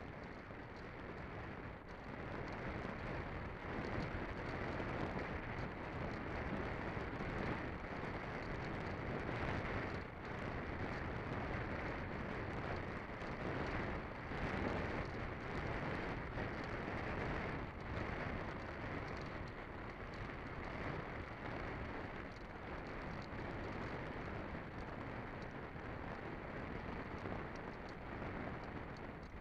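Steady wind rush over the onboard camera microphone of a Conscendo glider in flight, with no motor tone heard.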